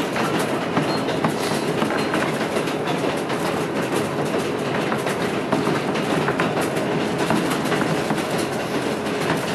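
New York City subway train on the F line running between stations, heard from inside the car: a steady running noise of the wheels on the track, broken by irregular clicks as the wheels cross rail joints.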